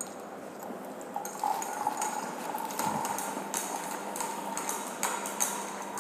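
Glass stirring rod clinking repeatedly and irregularly against the inside of a glass beaker while stirring aluminium sulfate and potassium sulfate into hot water to dissolve them.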